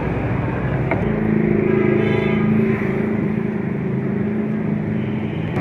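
A motor vehicle engine running steadily close by over busy street noise, its hum growing stronger about a second in.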